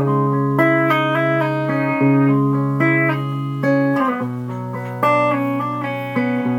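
Clean electric guitar picking a melody, a new note roughly every half second over a held low note that drops to a lower pitch about four seconds in.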